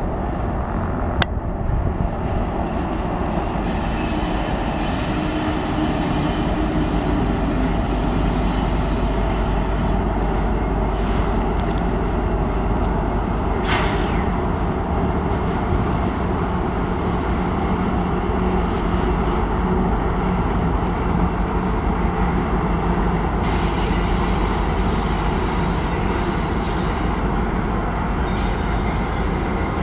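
Lead diesel-electric locomotives of a Union Pacific freight train passing, their engines running with a steady drone.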